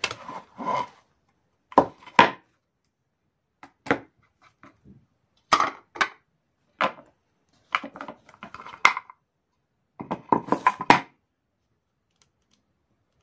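Hand-peeling hard-boiled eggs: scattered short clusters of sharp clicks and crackles of eggshell breaking away, with light knocks on the table and cutting board.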